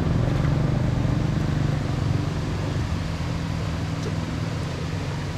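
A low engine hum, strongest in the first two seconds and then fading, over a steady rushing noise.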